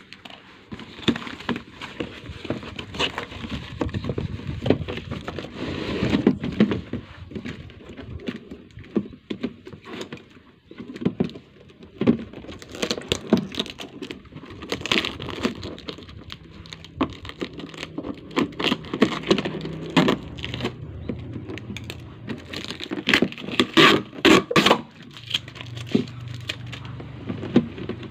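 Hands tearing open a taped cardboard box and then handling a stack of clear plastic food containers: irregular crinkling, crackling and light plastic clatter, loudest in bursts about halfway through and near the end.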